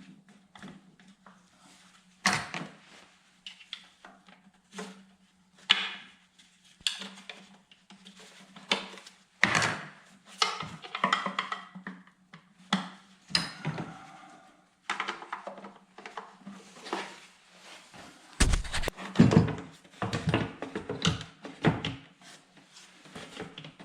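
Irregular clanks, knocks and rattles of hand tools and metal parts being handled during work on a Pentastar 3.6L V6 engine bay, with a few heavier thumps near the end.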